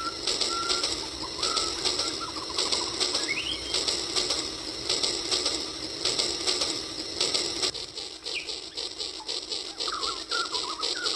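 Battery-powered toy steam locomotive running along its track, its motor and wheels making a rapid, steady clicking rattle that drops a little in level about eight seconds in.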